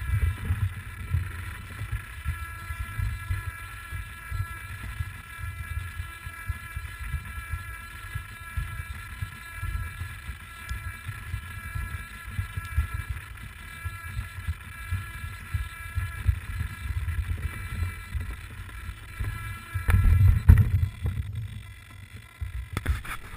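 Align T-Rex 550 electric RC helicopter heard from its onboard camera: a steady high motor and gear whine over gusty low rumble of rotor wash buffeting the microphone. The rumble swells about twenty seconds in, and the whine fades near the end.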